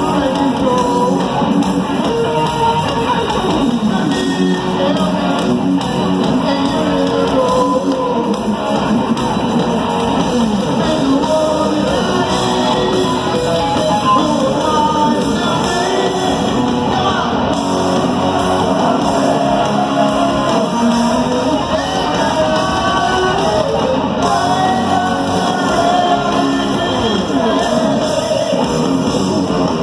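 Live rock band playing with electric guitar and singing, heard from among the crowd in a large hall.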